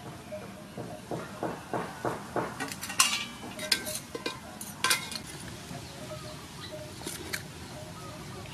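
Metal tongs and a ladle clinking and scraping against an aluminium pot as boiled sea snails are stirred and lifted out. A quick run of knocks in the first half, the sharpest about three and five seconds in, then two lighter clinks near the end.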